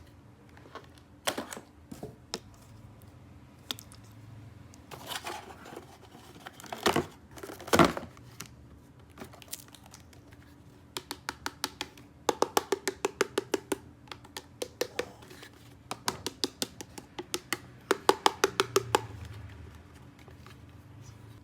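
Plastic toy pieces being handled, with scattered taps and clicks and two louder knocks a little before halfway. In the second half come two runs of rapid, even clicking, about ten clicks a second.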